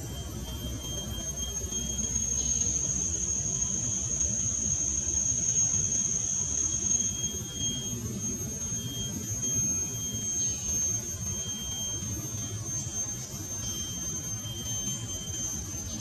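A steady, high-pitched insect drone, with a fainter broken tone below it and a low rumble underneath. A few faint short chirps come through now and then.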